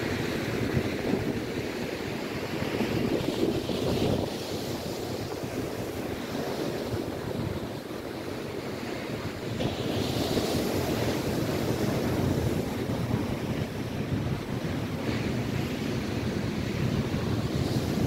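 Lake Erie surf: waves rolling in and breaking on the shore, with wind buffeting the microphone. The hiss swells about halfway through as a wave breaks close in.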